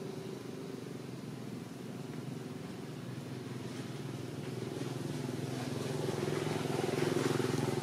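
A motor vehicle's engine running with a steady low hum, growing louder toward the end as it draws near.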